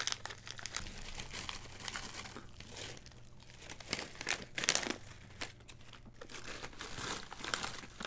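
A plastic-foil snack bag of chili nuts being pulled open and handled, crinkling in irregular bursts.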